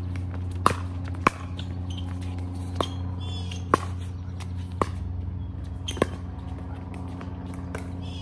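Pickleball rally: the plastic ball is struck back and forth by paddles, giving about six sharp pops spaced roughly half a second to a second and a half apart. A steady low hum runs underneath.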